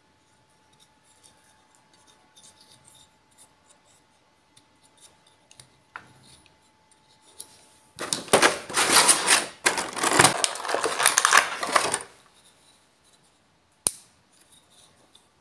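Small plastic toy figures being handled, with light scattered clicks, then about four seconds of loud crackling of a thin clear plastic blister tray, and one sharp plastic snap near the end.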